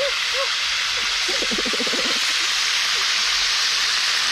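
Spiny lobsters deep-frying in a wide pan of hot oil over a wood fire: a steady, loud sizzle of bubbling oil.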